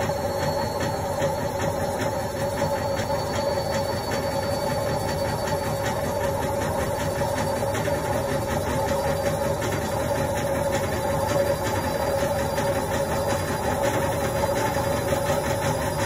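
Indesit front-loading washing machine on its spin cycle: the drum spins with a steady hum and a constant mid-pitched tone that neither rises nor falls.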